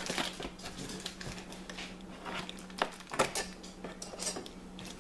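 Packaging being handled: scattered light rustles and clicks of paper and cardboard, with two sharper knocks about three seconds in, over a faint steady low hum.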